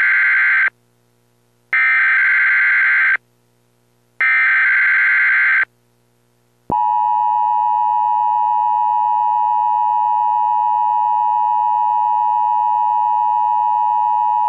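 Emergency Alert System SAME header: three short bursts of screeching digital data tones, each about a second and a half long with short gaps between, carrying the coded severe thunderstorm warning. About seven seconds in comes the EAS attention signal, a steady two-tone alert beep held loud and even for about eight seconds.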